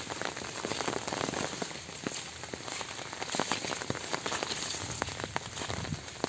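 Light rain pattering on leaves and wet ground: a steady hiss dotted with many small, irregular drop ticks.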